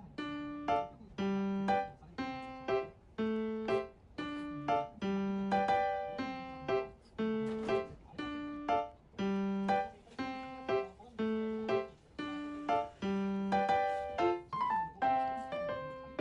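Background music: a piano-like keyboard playing a light, repeating tune of short plucked-sounding notes in a steady rhythm.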